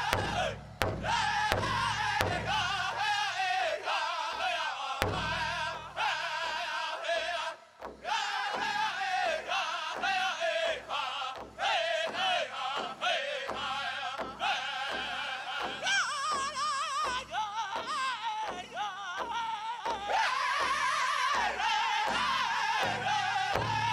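Pow wow drum group singing a men's chicken dance song: high-pitched group singing over a steady beat on the big drum, with a brief drop about eight seconds in.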